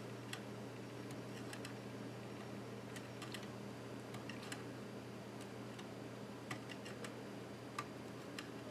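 Faint, irregular small clicks and light taps from parts inside an iBook G4 laptop being worked loose by hand during disassembly, about ten in all, over a steady low hum.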